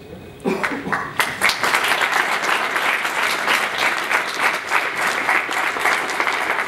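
Audience applauding. The clapping starts about half a second in and stays steady and dense.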